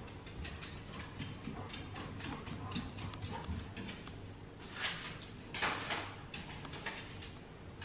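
Golden retriever's claws clicking on a hard herringbone floor as it trots off, a quick run of light ticks. About five and six seconds in come two louder rustling scrapes.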